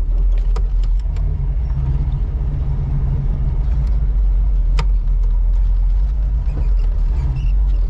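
1985 Oldsmobile Cutlass Supreme's engine, fitted with a brand-new carburetor and large headers, running steadily with a low exhaust note and a few light clicks. It keeps running without stalling under hard use, a sign that the new carburetor is working.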